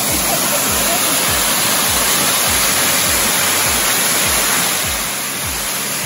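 Small waterfall pouring onto rocks in a steady rush of water, with background music carrying a steady low beat underneath.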